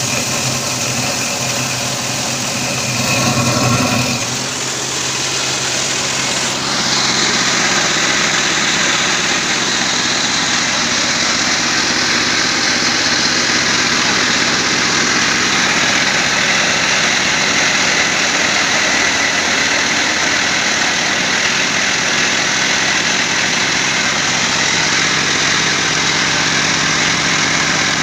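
Corn-cracking machine (PJ350) running, driven by a small stationary engine: a steady machine hum, then from about six or seven seconds in a louder, dense grinding rush as dried corn kernels go through the cracker and are broken.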